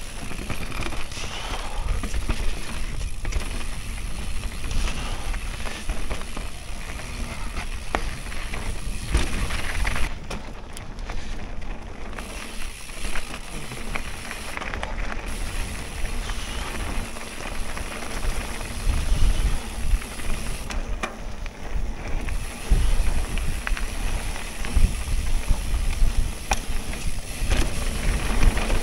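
Mountain bike riding fast down a dirt and gravel singletrack: continuous noise of knobby tyres on loose ground, with frequent knocks and rattles from the bike over stones and roots.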